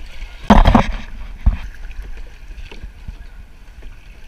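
Sea water splashing and lapping around a plastic sit-on-top kayak, with a loud sudden burst about half a second in and a low thump about a second and a half in.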